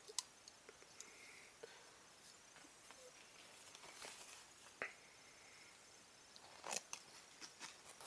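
Near silence with a few faint clicks and soft rustles: the small metal scissors of a folding multi-tool pocket knife being handled and snipping a sheet of soft paper. The clicks cluster near the end.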